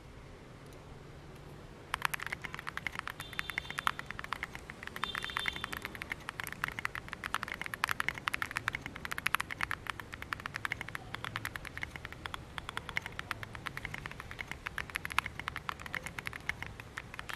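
Fast, continuous typing on an OWLAB QK65 mechanical keyboard with stock Boba U4T tactile switches and Domikey DCS keycaps: a dense run of keystroke clacks starting about two seconds in.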